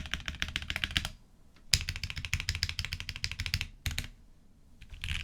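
Fast typing on a mechanical keyboard with lubed Gateron Milky Yellow Pro linear switches, a POM plate and Drop DCX ABS keycaps: a dense run of keystrokes, a short pause about a second in, then a second run that stops just before four seconds in, followed by a few scattered key presses near the end.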